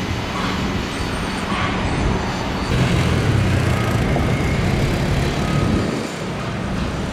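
Road traffic: a steady rumble of passing vehicles. It grows louder from about three seconds in to about six seconds in as a heavier vehicle goes by.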